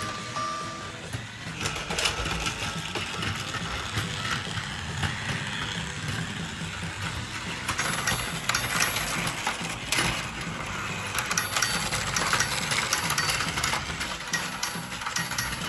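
Small battery-powered toy motor whirring steadily as a toy vehicle runs along plastic track, with many small clicks and clacks of wheels and parts on the track.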